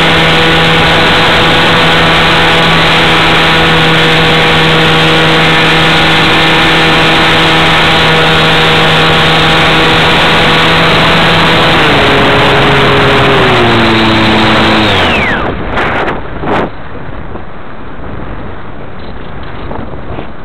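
Radio-controlled model airplane's motor heard from a camera on board, running at a steady pitch under heavy rushing air noise. It is throttled back in two steps after about twelve seconds and cuts off about three quarters of the way through, leaving only wind rushing over the microphone as the plane glides.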